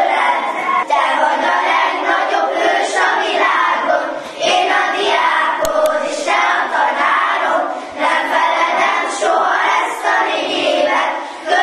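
A group of young schoolchildren singing together in chorus, phrase after phrase.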